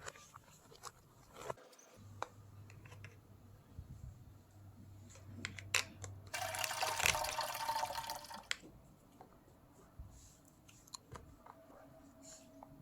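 Small plastic toy parts clicking and tapping as they are handled, with a low steady hum for a few seconds and, about six seconds in, a two-second stretch of loud running noise like water pouring.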